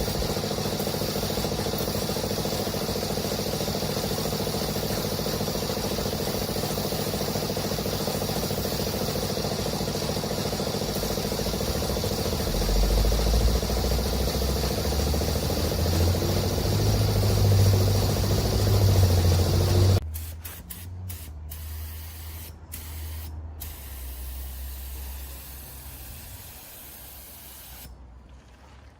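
Loud, steady hiss of a compressed-air tool over a machine hum. Low rumble builds in its second half, then it cuts off abruptly about two-thirds of the way through, leaving a quieter hum that fades away.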